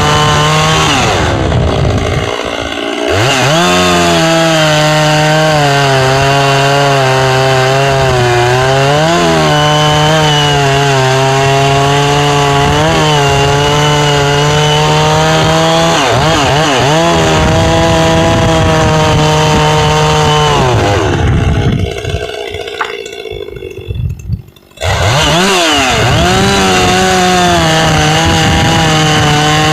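Two-stroke chainsaw with a 24-inch bar running at high revs while cutting through a large round of red pine, its engine note sagging under load and picking back up. Twice the engine falls away, briefly near the start and more deeply about three quarters of the way through, then revs back up.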